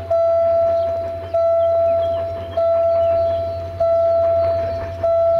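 Railway level-crossing warning bell ringing, one strike about every 1.2 seconds, each ring fading before the next: the signal that a train is approaching the crossing. A low steady hum lies underneath.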